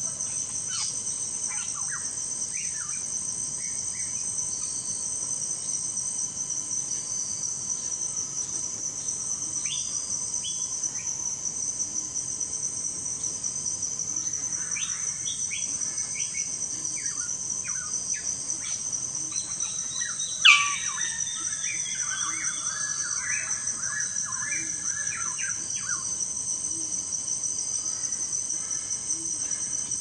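Steady shrill chorus of insects, with scattered short bird calls over it. About twenty seconds in a bird gives one loud sharp call that sweeps downward, followed by several seconds of chattering notes.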